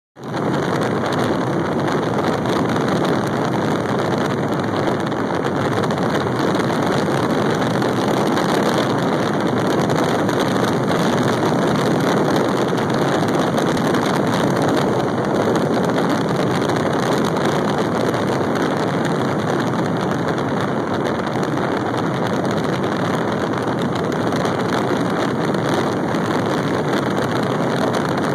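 Loud, steady wind rushing over the microphone of a phone held out of the window of a car moving at road speed, mixed with the car's road noise.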